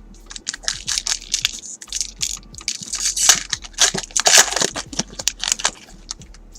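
Foil wrapper of a trading card pack being torn open and crinkled, a dense rustling crackle.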